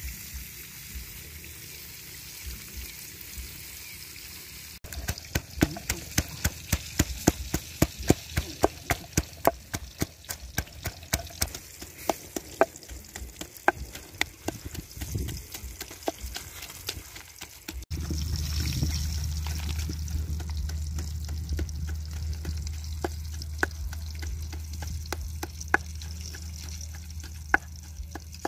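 Wooden pestle pounding chilies in a stone mortar: rapid sharp knocks about three a second through the middle of the stretch. After a cut the knocking gives way to a steady low rumble with only a few scattered knocks.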